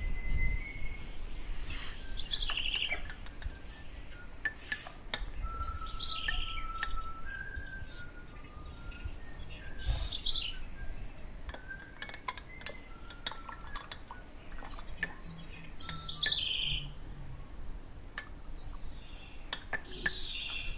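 Birds calling: bright chirping bursts every few seconds, with short whistled notes in between and a few sharp clicks.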